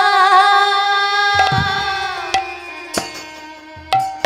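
Devotional kirtan music: a held note with a wavering pitch fades out, then a hand drum comes in about a second and a half in. Its deep strokes slide down in pitch, between sharp higher strokes.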